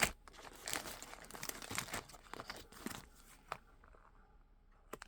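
Crinkling and rustling of something being handled close up, dense with small clicks, fading after about three and a half seconds, with a couple of sharp clicks near the end.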